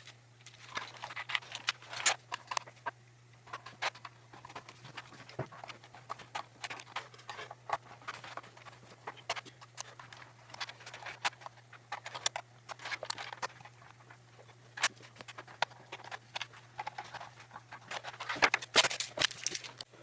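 Plastic keyboard parts being handled and fitted back into the case, with irregular clicks, taps and rustles, busiest near the end. A steady low hum runs underneath.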